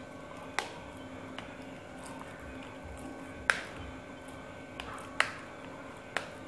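Metal spoon pressing wet grated cassava in a plastic strainer to squeeze out its water, with about five short, sharp clicks of the spoon against the strainer, the clearest about three and a half and five seconds in. A faint steady hum runs underneath.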